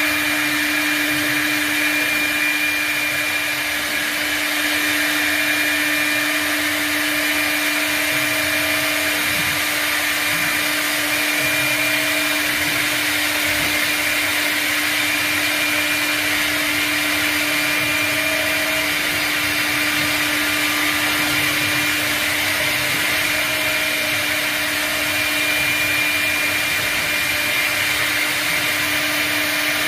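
Twin-spindle CNC router running and cutting into a sheet on its bed: a steady spindle whine with a constant hum under it and a dense hiss on top, unbroken throughout.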